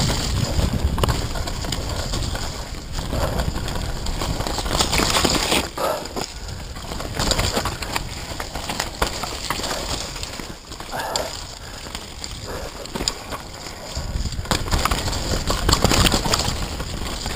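Downhill mountain bike ridden fast over a dirt forest trail: tyres on loose dirt, with the chain and frame rattling and knocking over bumps, and wind buffeting the microphone in a low rumble that swells near the end.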